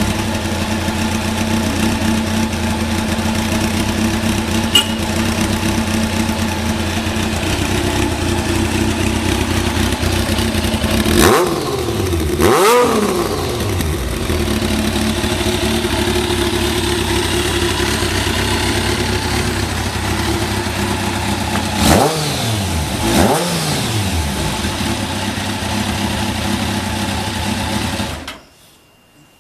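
Kawasaki ZZ-R1100's inline-four engine idling steadily, revved up briefly twice about 11 seconds in and twice more about 22 seconds in, each time dropping back to idle, then switched off near the end. The seller describes the idle as stable with no abnormal noise.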